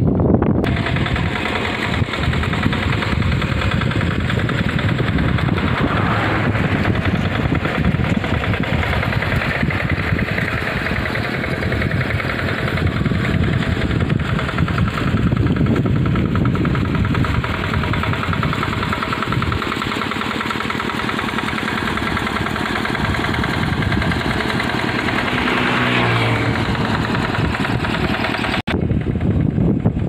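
A small engine running steadily, with a brief change in pitch a few seconds before the end.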